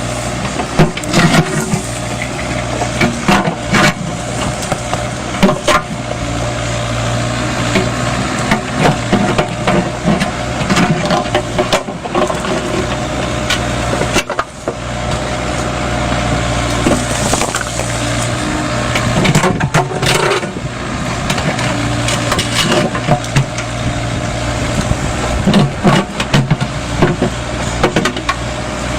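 Mini Kubota excavator's diesel engine running steadily as it digs, with repeated knocks and clatter of stones against the steel bucket.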